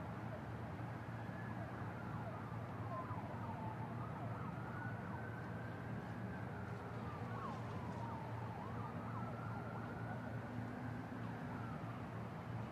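Emergency-vehicle siren wailing, its pitch rising and falling slowly in long sweeps of a few seconds each, over a steady low hum of city traffic.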